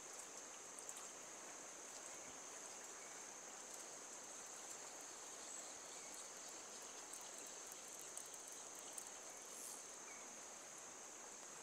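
Faint outdoor ambience of a trout river: a steady high-pitched insect drone over the even rush of stream water, with a few soft clicks.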